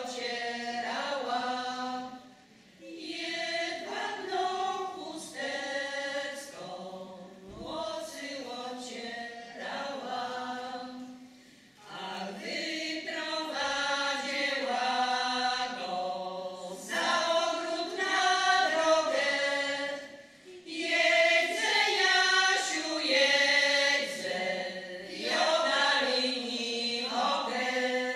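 Women's folk choir singing a traditional Polish folk song a cappella in several long phrases, with short pauses for breath between them.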